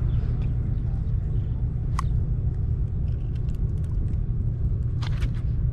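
A steady low rumble, with a few faint clicks and taps as hands handle a small fish on the concrete jetty wall, one about two seconds in and a couple near the end.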